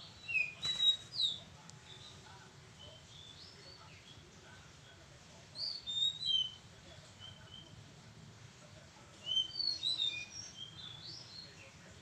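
A small songbird giving three short bursts of high, quick, sliding chirps and whistles: one about a second in, one around six seconds in, and a longer one around ten seconds in.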